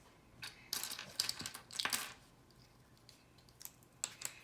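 Small plastic LEGO pieces clicking and rattling as they are picked through and handled, with a quick flurry of clicks in the first couple of seconds and a few single clicks later.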